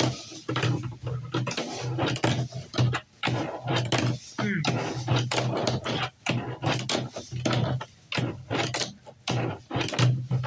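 Tech Deck fingerboard clacking on a tabletop: many quick, sharp taps and landings of the little board and its wheels, several a second, as fingerboard tricks are tried over and over.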